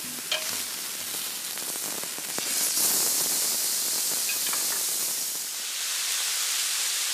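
Pork belly sizzling and spitting on a hot ridged grill pan as it is turned with metal tongs. The sizzle grows louder about two and a half seconds in, with a few light clicks of the tongs.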